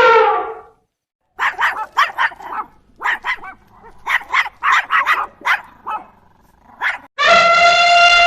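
A dog barking, about fifteen short sharp barks in quick clusters. It falls between two long, even, pitched calls: one ends just after the start, and another begins near the end.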